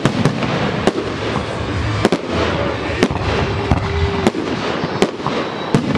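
Professional fireworks display: an irregular string of sharp bangs, about ten in six seconds, over a steady crackling hiss.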